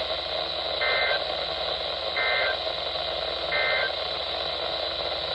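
Three short data chirps of an Emergency Alert System SAME signal, a warbling two-tone burst repeated about a second apart, the end-of-message code that closes an alert, received over radio with a steady hiss.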